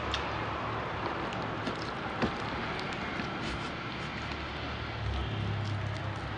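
Fried chicken and rice being handled with the fingers in a cardboard box, giving a few soft clicks and rustles, over a steady background noise.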